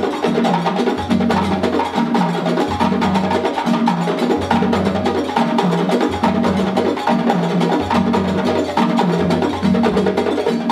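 West African djembe and dunun drum ensemble playing a fast, dense rhythm. Under the djembes' sharp strokes, the low dunun tone comes back in a repeating pattern about every second.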